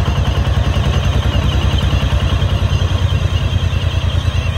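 Diesel engine of a công nông farm dump truck running under load as it drives with a full bed of soil, a rapid, even chugging.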